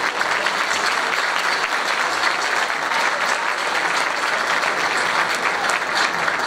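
Steady applause from a concert audience and the choir on stage, many hands clapping densely without a break.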